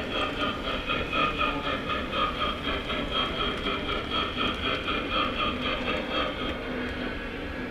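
O-scale model steam locomotive running toward the camera on three-rail track: a steady rumble of wheels on rail with a rapid, regular pulsing from the engine's sound.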